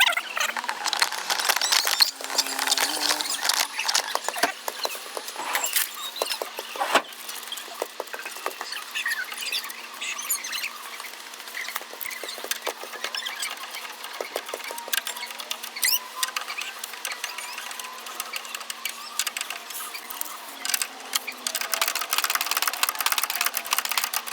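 Irregular clicks and light metallic taps with short squeaks, from hand tools working on the car's front suspension as the sway bar links are swapped.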